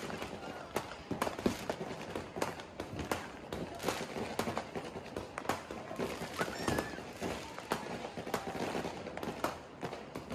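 Fireworks going off: a near-continuous, irregular run of overlapping bangs and crackles from many shells and firecrackers.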